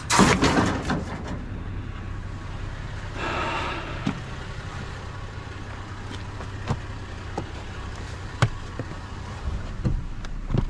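Truck engine idling with a steady low hum, a loud rattling clatter in the first second and a softer one about three seconds in, and scattered sharp clicks and knocks.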